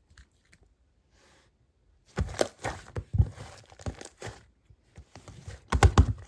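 Slime being squeezed and stretched by hand. After about two seconds of quiet comes a run of sticky clicks and crackling pops, loudest near the end.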